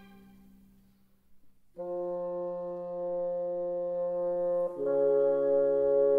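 Background orchestral music. A fading tail gives way to a second or so of near silence, then held brass chords come in suddenly and shift to a new chord about three seconds later.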